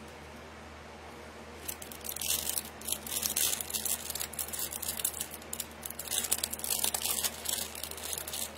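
Crinkly packaging being handled and rustled in irregular crackling bursts, starting about two seconds in after a quiet moment.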